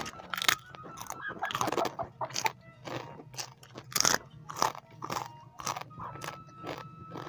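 A person biting and chewing crunchy fried food close to the microphone: a run of irregular crisp crunches, the loudest about four seconds in.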